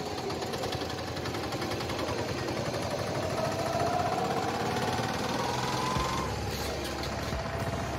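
Road traffic: a vehicle engine running, with a whine that rises in pitch over about three seconds as the vehicle speeds up and stops about six seconds in, followed by a low rumble.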